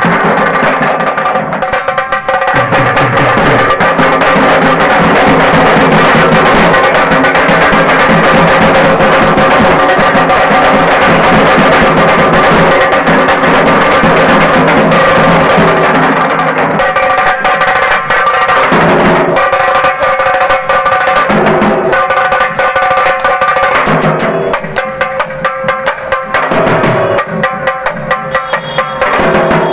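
Tasa party drumming: a tasha kettle drum beaten fast with two thin sticks over large barrel dhols, in a dense, loud roll. About three quarters of the way through, the rhythm opens out into separate, evenly spaced beats.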